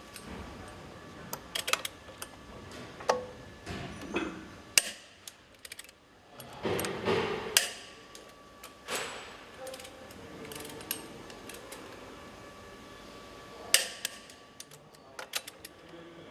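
Hand tools and metal engine parts clinking and knocking: scattered sharp clicks and knocks, some with a short metallic ring.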